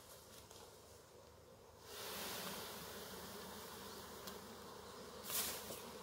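Honeybee swarm buzzing, rising suddenly about two seconds in as the clustered swarm is shaken off a branch into a hive box, then holding as a steady hum of many bees in the air. A brief rustle near the end.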